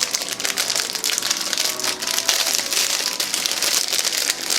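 Plastic Twinkie wrapper crinkling and rustling as it is handled, a dense run of crackles with no pause.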